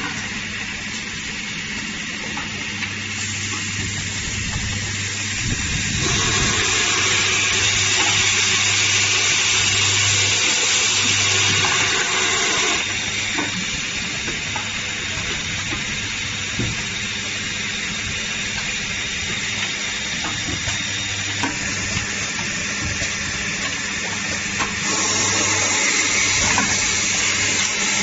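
Automated assembly machine running: a steady hiss over a low hum that comes and goes, shifting in character a few times.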